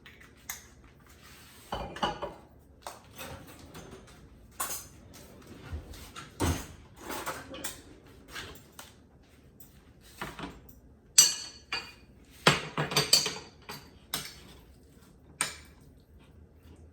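Kitchen utensils and cookware clinking and knocking as a pan and olive oil are handled at the stove: scattered sharp knocks, the loudest a clatter about eleven seconds in and another run of knocks a second or two later.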